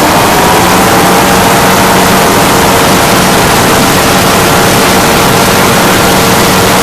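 Light aircraft engine and propeller running steadily at cruise, heard on board with heavy wind rush over it; one engine tone shifts up slightly near the start.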